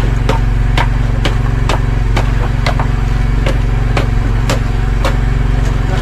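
An engine on a fishing boat running steadily, with sharp knocks repeating about twice a second over its drone.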